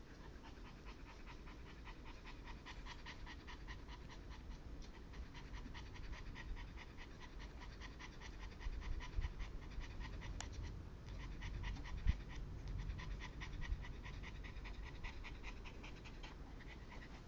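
A chihuahua panting rapidly and steadily, with a few brief breaks: stress panting from fear of a thunderstorm.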